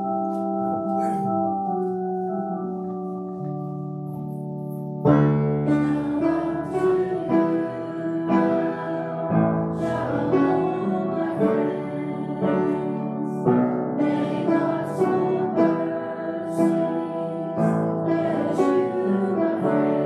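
A congregation sings a benediction hymn to keyboard accompaniment. Held chords for the first few seconds, then from about five seconds in a louder, fuller passage with steady note changes.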